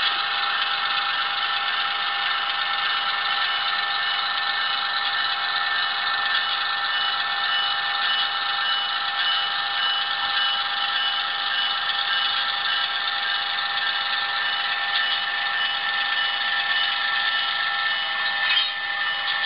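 HO-scale model SW1500 switcher locomotive running: a steady mechanical drone with several high held tones and little low end, with a short click near the end.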